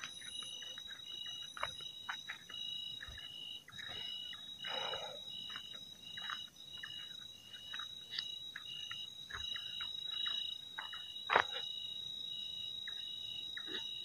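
Night forest chorus: a steady high-pitched drone and a pulsing call repeating about twice a second, from calling insects and frogs. Under it, footsteps crunch through dry leaves and twigs, with one louder snap about eleven seconds in.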